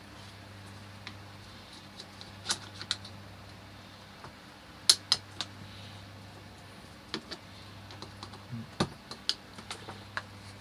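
Irregular sharp clicks and taps of the wound recoil spring and starter parts of a Stihl TS400 being handled and seated in the starter housing, the loudest click about five seconds in, over a steady low hum.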